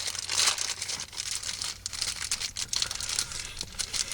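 Packaging from the parts store being handled and opened by hand: irregular crinkling and tearing with many small crackles and clicks.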